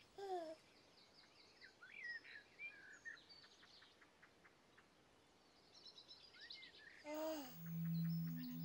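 Birds chirping and singing lightly throughout. A baby gives a short coo right at the start and another about seven seconds in. A low sustained musical note begins just after the second coo.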